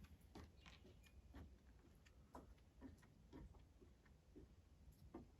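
Near silence with faint, irregularly spaced small clicks, about one every half second to a second.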